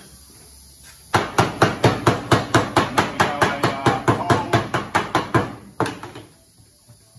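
A mallet hammering on the lid of a metal paint tin: a rapid, even run of about two dozen metallic knocks, roughly five a second, with one last knock after a short pause.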